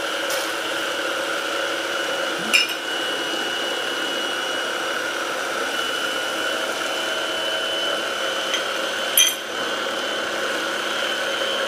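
Small countertop blender running steadily as it emulsifies garlic, egg white and a slow drizzle of oil into a thick dip, with two sharp clicks about two and a half and nine seconds in.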